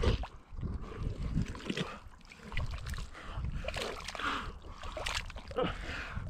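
Thick wet mud squelching and sloshing in irregular bursts as a person crawls and wallows through it.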